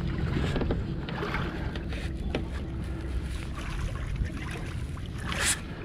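Low steady rumble and wind noise aboard a boat moving slowly over open water. There is a short hissing burst near the end.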